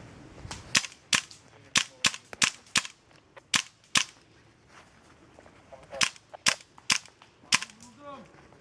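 Airsoft guns firing single shots: about nine sharp pops in the first four seconds, a pause, then four more from about six seconds in.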